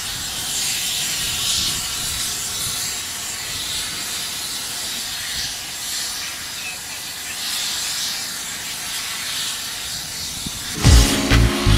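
Steady hiss of steam escaping from a standing steam tank locomotive's open cylinder drain cocks, rising and falling a little with no exhaust beats. Music comes in loudly just before the end.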